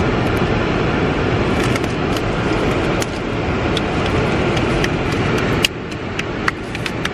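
Steady rush of a parked car's air conditioning blowing with the engine running, overlaid with light clicks and crinkles of a cardboard box and its plastic wrap being opened by hand. A sharper snap comes about five and a half seconds in, after which the rush is a little quieter.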